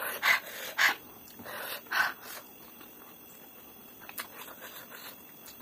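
A few short, breathy puffs of air blown out through pursed lips, a reaction to the heat of 2x spicy ramen. Then quiet, with faint mouth clicks from chewing near the end.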